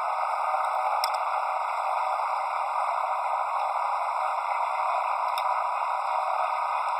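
Steady rushing noise of a boat under way, thin and hissy with no bass.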